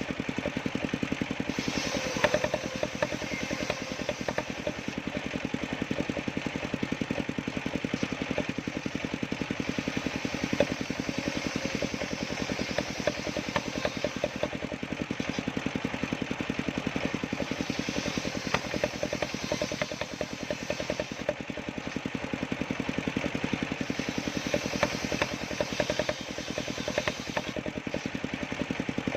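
Engine of a homemade sawmill running steadily with a rapid, even firing pulse, with scattered sharp clicks over it.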